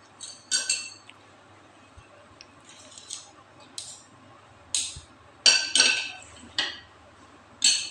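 Metal spoons clinking and scraping against a mixing bowl and a plastic tub as margarine is scooped out and knocked off the spoon: about eight sharp, separate clinks, several bunched together a little past halfway.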